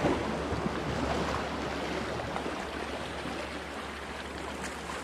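Steady wash of small waves lapping over shoreline rocks, a rushing noise that slowly grows quieter.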